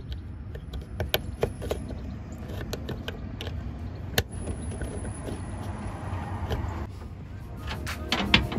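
Plastic push-clips being pressed into a car's plastic fender-well trim by hand: scattered small clicks and taps, with one sharper snap about four seconds in as a clip seats snugly. A few knocks near the end, over a steady low rumble.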